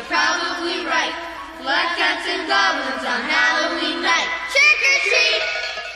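Music with high singing voices, several voices at once with wavering, sliding pitches, fading near the end.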